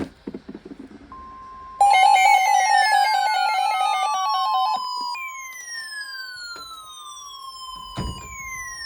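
Electronic weather-alert tones: a steady NOAA Weather Radio warning alarm tone, joined for about three seconds by a fast warbling beep and by repeated falling sweep tones, each falling for about three seconds. These tones signal a severe thunderstorm warning. There is a sharp click about eight seconds in.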